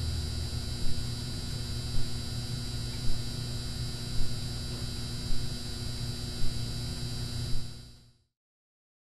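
A steady hum with a hiss and a few held tones, pulsing softly a little more than once a second, then fading out to silence about eight seconds in.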